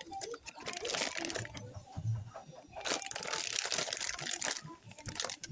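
Crinkling and rustling of things being handled, in two long stretches, with many small clicks and a few dull knocks.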